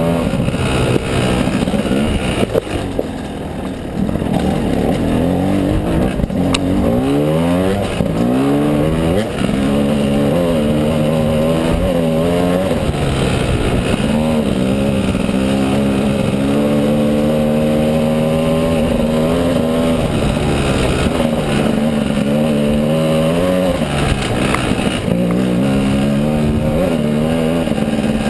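Gas Gas EC300 300cc two-stroke enduro dirt bike engine revving up and down repeatedly as it climbs a rough uphill trail under load, with the pitch rising and falling with the throttle and gear changes.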